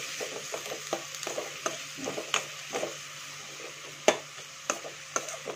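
Chopped onions sizzling in hot oil in a metal wok as they fry toward translucent, stirred with a perforated metal spoon that clicks and scrapes against the pan; one sharper knock about four seconds in.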